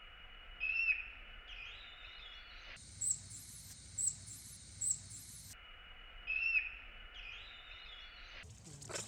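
Short, high-pitched animal chirps, some in a run of three about a second apart, over a hiss that cuts in and out abruptly.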